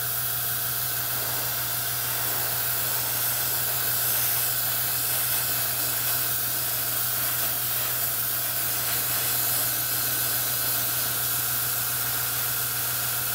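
Gravity-feed airbrush spraying thinned paint, a steady unbroken hiss of air at just under 30 psi.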